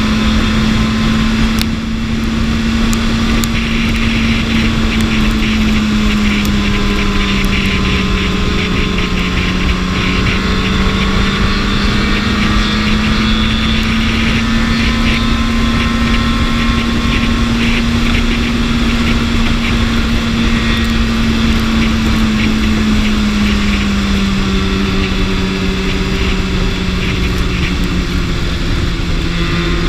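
BMW S1000RR inline-four engine holding a steady cruising speed under wind rush, its note easing down slightly twice, briefly near the middle and more toward the end.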